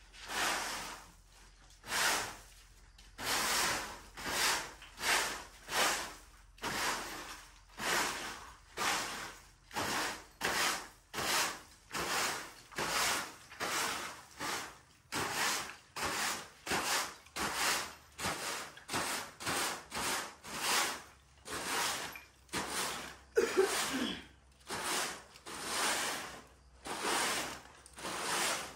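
Repeated swishing, scraping strokes of a hand tool worked across a surface, a little more than one stroke a second in a steady rhythm, with one sharper, louder stroke about two-thirds of the way through.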